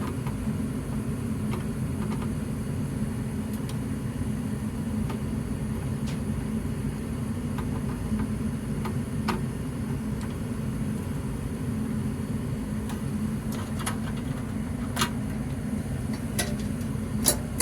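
Steady low mechanical hum of a running machine, with a few faint scattered clicks from wires and terminals being handled, more of them near the end.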